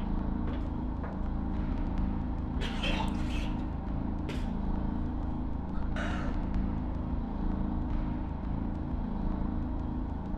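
A steady low mechanical drone of several held tones, with a few short hissing bursts over it, the strongest about three seconds in and again about six seconds in.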